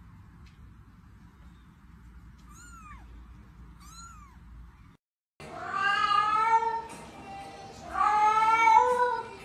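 A house cat meowing loudly: two long, drawn-out meows about a second each in the second half. Before them come a few faint, short, high mews from a kitten.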